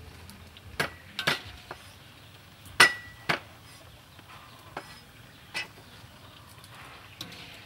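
Metal spatula knocking and clinking against a wok as food is stirred: about seven separate sharp strikes, the loudest about three seconds in with a short ring.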